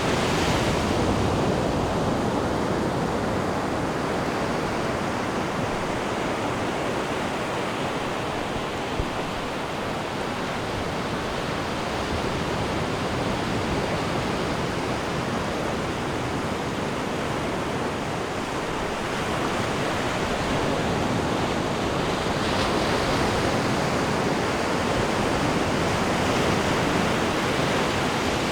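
Ocean surf on a sandy beach: a steady wash of waves breaking and running up the shore, swelling as a wave breaks just at the start and again about three quarters of the way through.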